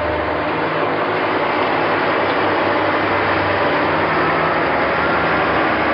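Heavy earthmoving machinery working steadily: an engine running under a dense mechanical clatter.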